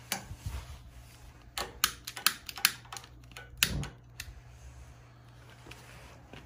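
Irregular sharp clicks and knocks, densest between about one and a half and three seconds in, with a heavier knock a little later, over a low steady hum.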